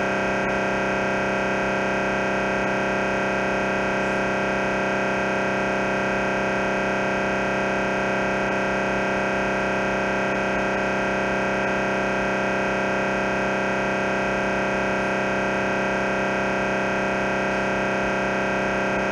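MRI scanner running a T1 axial sequence: the gradient coils give out a steady, unbroken electronic buzz made of many stacked tones.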